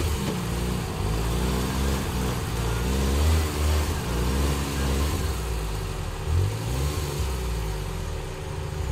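Suzuki Jimny JA11's small engine revving, its pitch rising and falling again and again as the throttle is worked on an off-road course.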